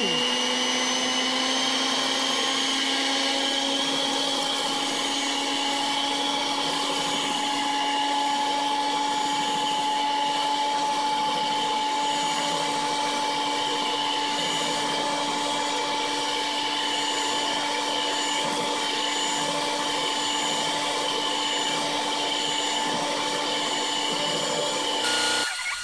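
Electric hand mixer with a whisk attachment running steadily at one speed, whipping heavy cream into whipped cream. Its motor makes an even whine with a steady hum beneath it, and cuts off abruptly near the end.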